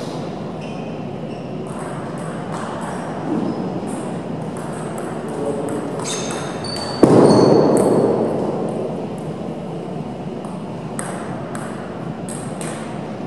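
Table tennis balls clicking off bats and tables in a hall, a scatter of quick sharp ticks, some from neighbouring tables. A loud burst about seven seconds in fades over a second or so.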